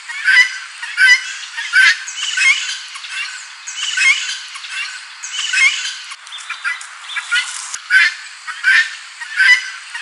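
Helmeted guineafowl calling loudly: a rapid, repeated series of calls at about one a second, with harsher, rasping calls between about two and six seconds in.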